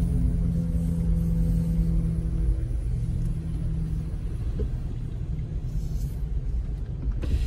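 Jeep engine and road rumble heard inside the cabin while driving slowly in traffic: a steady low drone whose even engine note gives way to a rougher rumble about three seconds in.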